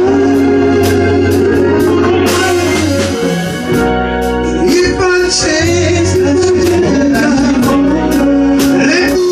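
Male vocal group singing held harmony notes into microphones over a live band, with an organ-like keyboard, steady bass and regular drum and cymbal hits.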